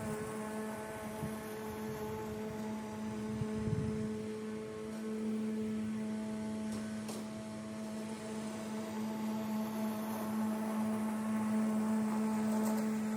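A powered lawn tool's motor running at a constant speed: a steady, even hum.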